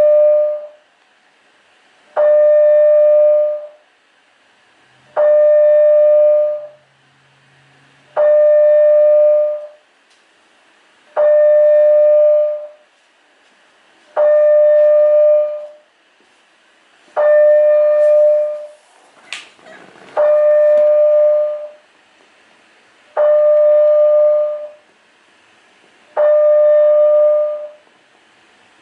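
Building fire alarm sounder giving a steady, even tone about a second and a half long, repeating every three seconds with equal gaps, about ten times in all. A short rising high squeak cuts in about two-thirds of the way through.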